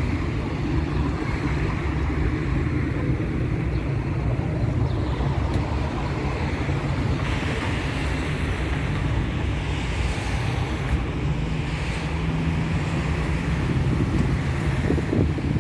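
Steady traffic noise from cars on a busy city boulevard: a constant low rumble with no single standout event.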